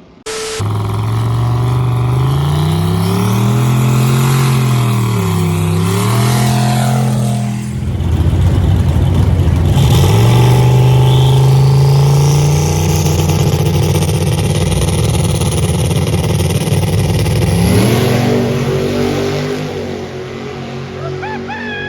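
Drag racing car's engine revving up and down, then launching about eight seconds in and running hard down the strip at full throttle. The sound fades near the end.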